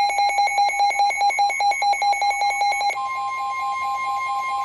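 Weather radio alert beeping rapidly at one buzzy pitch, about ten beeps a second. About three seconds in, the steady, higher NOAA Weather Radio warning alarm tone begins, the tone that precedes a warning broadcast, and the beeping fades under it.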